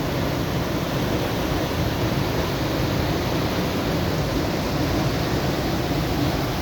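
Waterfall's falling water rushing in a loud, even wash of noise that does not change.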